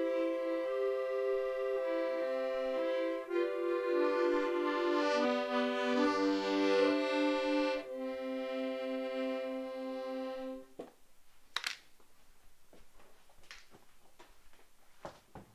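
Accordion playing a melody over sustained chord notes, stopping abruptly about two-thirds of the way through. A few faint clicks or knocks follow.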